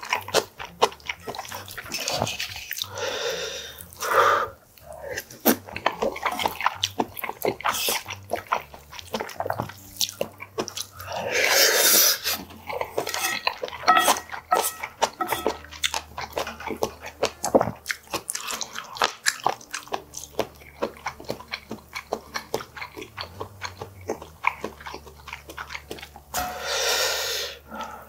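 Close-miked chewing and mouth smacking of mouthfuls of rice bowl, with a wooden spoon clicking and scraping against brass bowls. Dense irregular clicks throughout, with a few longer noisy stretches.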